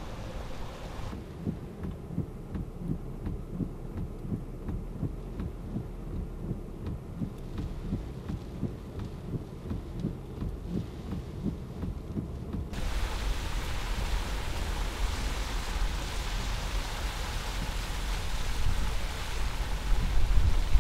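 Hurricane Isaac's wind and rain. First comes a low, irregularly pulsing rumble of wind buffeting the microphone. About two-thirds of the way in it changes abruptly to the steady hiss of heavy rain driven by wind.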